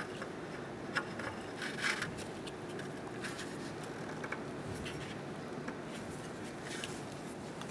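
Faint shop room tone with a few soft clicks and rubs from gloved hands on metal, threading an oxygen sensor by hand into a catalytic converter and turning the converter on the bench.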